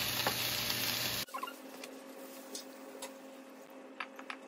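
Food sizzling in a frying pan for about a second, cutting off abruptly. Then a quiet room with a steady low hum and a few light clicks.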